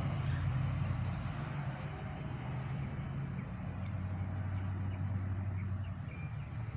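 Road traffic: the engines of passing cars and pickup trucks make a steady low hum over tyre noise, the hum dropping in pitch about halfway through.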